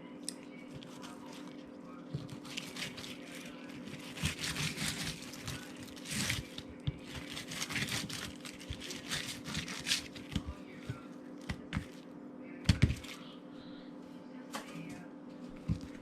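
Knife scraping and slicing through bass fillets on a cutting board, with rustling and handling noises and a couple of sharp knocks about two-thirds of the way through, over a steady low hum.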